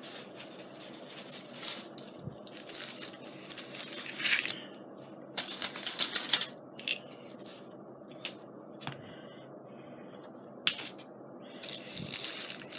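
Scrapbooking supplies being handled: paper and small items rustling, clicking and rattling in scattered short bursts.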